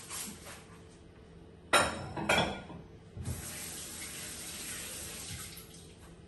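Two sharp knocks, then a kitchen sink tap running steadily into the basin for about two and a half seconds before it is turned off.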